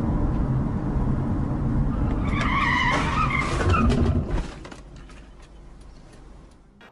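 Car driving with steady road and engine noise, then tires screeching for about a second and a half in a hard stop. After that the noise falls away much quieter.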